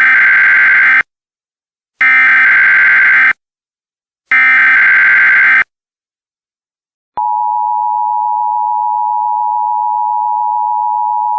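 Emergency Alert System SAME header: three harsh, buzzy data bursts about a second long, each a second apart. After a short silence comes a steady, continuous alert tone, the attention signal that announces an emergency message.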